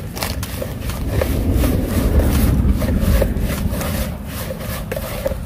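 Hands kneading and mixing carp paste bait in a bowl: a run of irregular short scrapes and crackles over a steady low rumble.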